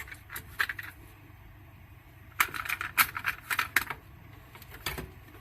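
Hard plastic clicks and rattles of a cassette tape being handled and loaded into the boombox's tape deck, with a quick cluster of them in the middle.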